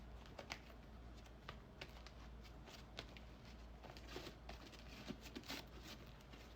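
Near silence with faint, scattered small clicks and crackles, more of them about four to five and a half seconds in.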